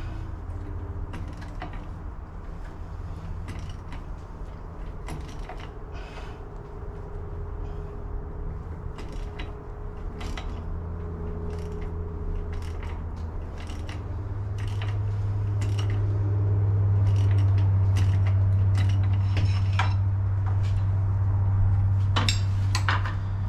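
Scattered metal clicks and clinks of hand tools working a threaded pulley installer, pressing a power steering pulley onto the pump shaft. A steady low hum runs underneath and grows louder a little over halfway through.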